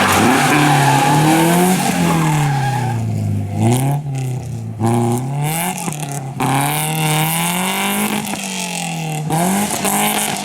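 Rally car engine revving hard, its pitch falling and climbing as it lifts off and changes gear several times, with tyre noise from skidding in the first few seconds.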